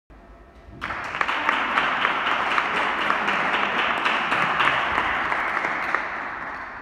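Audience applauding, a dense patter of hand claps that starts suddenly about a second in and dies away near the end.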